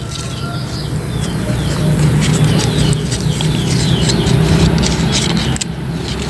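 A motor vehicle engine drones low and steady, louder from about two seconds in. Dadap serep leaves rustle and snap as they are picked by hand, and small birds chirp.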